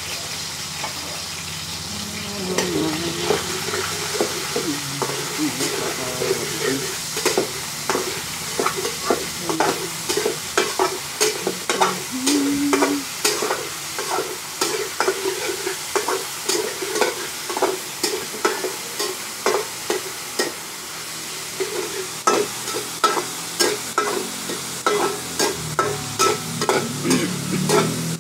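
Food sizzling in oil in a wok over a gas flame while a metal spatula stirs it, scraping and clacking against the wok about twice a second from about two seconds in.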